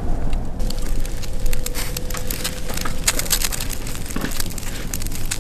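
Burning firewood crackling and popping in dense, irregular snaps over a steady low rumble.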